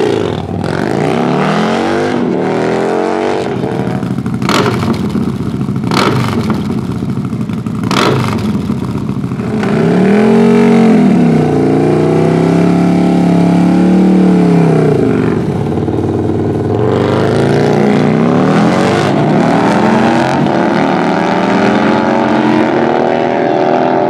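Big-bore 135 cubic inch Harley-Davidson Milwaukee-Eight V-twin with an aftermarket exhaust, revving up and down hard, with three sharp cracks in the first eight seconds, a loud held stretch in the middle, and the pitch climbing over the last several seconds as the bike accelerates.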